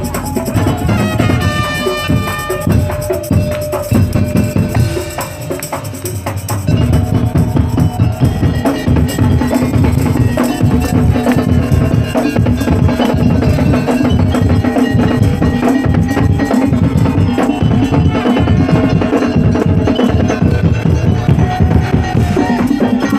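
Madurese daul (tong-tong) percussion ensemble playing: pitched melodic notes for the first few seconds, then about six seconds in heavy, fast drumming comes in and carries on over a steady held tone.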